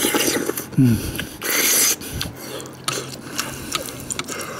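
Metal spoon and chopsticks stirring and scooping thick ramen-and-rice porridge in a glass dish, with scattered clicks of the utensils against the glass. There is a short hum just before a second in, and a loud breathy rush of air for about half a second around the middle.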